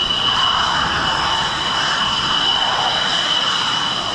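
Jet engine running steadily: a rushing noise with a steady high whine over it.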